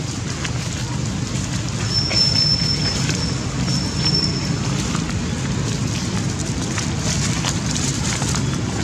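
Steady low rumble of wind buffeting the microphone, with scattered faint crackles. Two brief, thin, high whistles come about two seconds in and again near four seconds.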